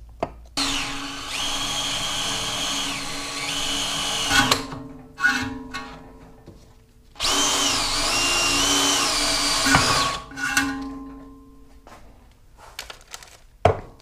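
Cordless DeWalt brushless drill boring holes through an aluminium diamond-plate panel: two runs of a few seconds each, the motor whine stepping up and down in pitch as the trigger is eased and squeezed, with a couple of short blips between and after them.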